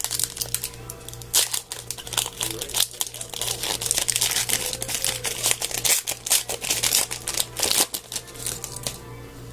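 Hockey card pack wrappers crinkling and crackling as they are handled and opened, in irregular dense bursts, over a steady low hum.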